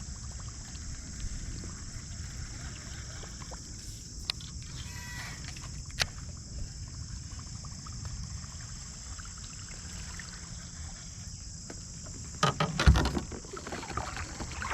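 Sounds of a kayak on a river: a steady low rumble of water and wind on the microphone with a high steady hiss, two sharp clicks, then near the end a quick run of knocks with one heavy thump.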